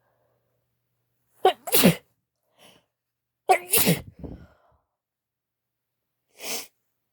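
A woman sneezing twice in quick succession, about two seconds apart. Each sneeze is a sharp, loud burst that drops in pitch.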